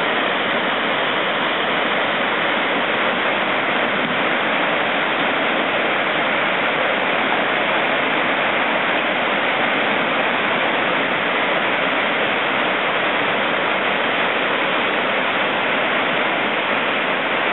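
Steady rushing of whitewater pouring over a waterfall and through a rocky river flume.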